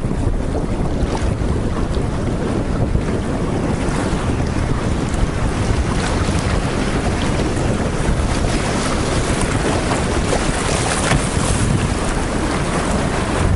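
Steady wind rumbling on the microphone over the rush of fast, choppy river water around a canoe's bow.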